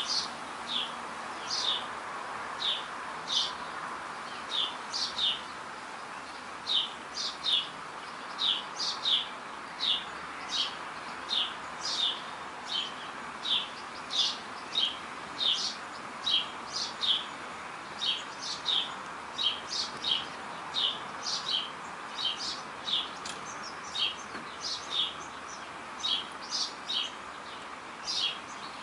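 A small animal's repeated high chirps, each a short call sliding down in pitch, coming about one or two a second and often in pairs, over a steady background hiss.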